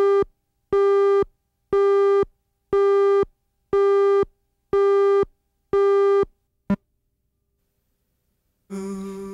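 Countdown beeps on a commercial tape's slate: seven identical buzzy tones, one a second and each about half a second long, then a single short blip and about two seconds of silence. Music starts near the end.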